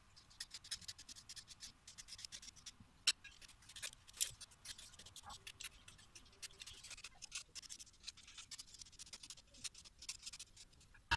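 A hand peeler scraping thin strips of zest off an orange: a rapid, irregular run of short, faint rasping strokes, with a few sharper clicks among them.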